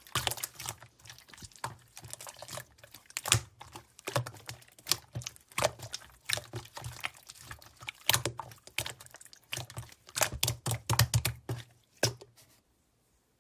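White slime being squished and pressed by hand, making a quick irregular run of wet clicks and pops that stops shortly before the end.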